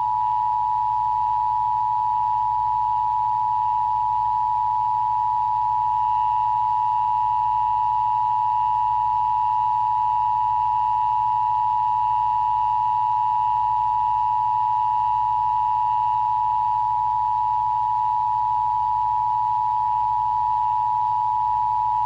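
Emergency Broadcast System Attention Signal: two steady sine tones at 853 Hz and 960 Hz sounding together as one unbroken, harsh two-tone alarm, the signal that marks an EBS test.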